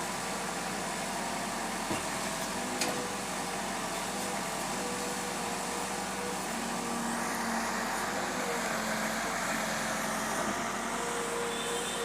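Case backhoe loader's diesel engine running steadily under work, its pitch shifting slightly. There are a couple of short knocks in the first three seconds, and a louder hiss joins about seven seconds in.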